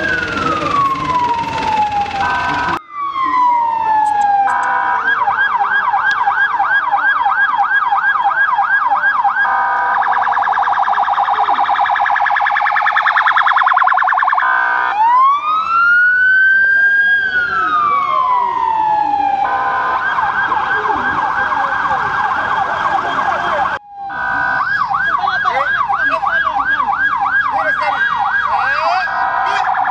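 Electronic vehicle siren switching between a slow wail and a fast yelp. The wail rises and falls over a few seconds, once at the start and again about halfway through. The yelp sweeps about three to four times a second.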